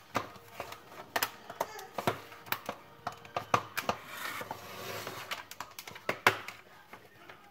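Irregular sharp clicks and knocks of a screwdriver and the hard plastic housing parts of a cordless stick vacuum being handled and pried apart.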